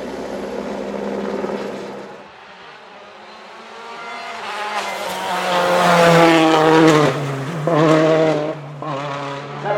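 Rally car engine approaching at speed and revving hard, its pitch sweeping up and down with short breaks at the gear changes; loudest a little past halfway. A steady drone fades out about two seconds in, before the car comes.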